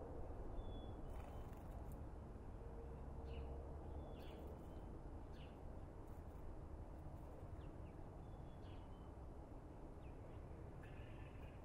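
Quiet outdoor background with a steady low rumble and a few faint, short bird chirps scattered through it, with a brief cluster of chirps near the end.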